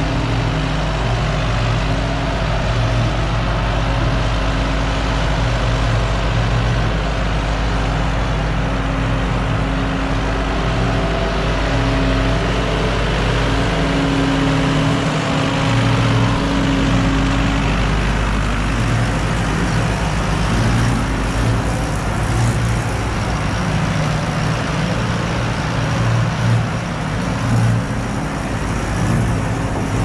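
Ford 5610 tractor's four-cylinder diesel engine running steadily at close range, pulling a feed wagon along the cattle feed passage.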